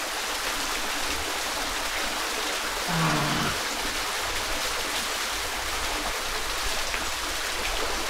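Small waterfall spilling into a shallow rock pool: a steady, even rush and splash of falling water. A voice calls out briefly about three seconds in.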